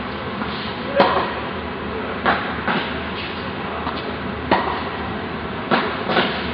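Tennis ball being hit with a racket and bouncing on the court: a sharp pop about every second, six in all, the loudest about a second in, over a steady background noise.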